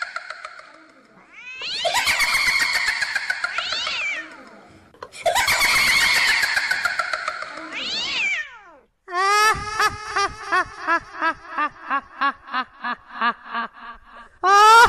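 Cat yowling: two long wailing yowls with sliding pitch, then a fast run of short rising-and-falling cries, about three a second.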